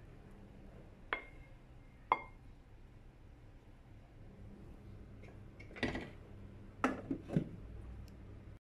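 Light clinks and taps of a plastic spatula against a ceramic plate: single taps about one and two seconds in, then a cluster of knocks about six to seven and a half seconds in.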